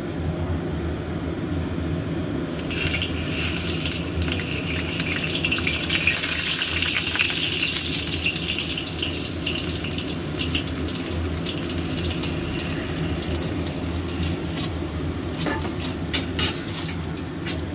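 Beaten egg hitting very hot oil in a wok about two and a half seconds in: a sudden loud sizzle full of crackles that eases after several seconds into a lighter sizzle with scattered pops. A steady low hum runs underneath.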